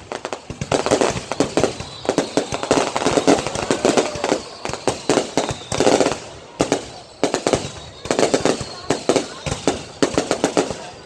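Fireworks going off in dense volleys of rapid cracks and pops, with short lulls between clusters, and people's voices mixed in.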